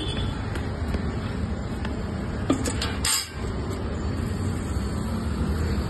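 Steady low rumble of a fuel-station forecourt, with two sharp metallic clinks about two and a half and three seconds in.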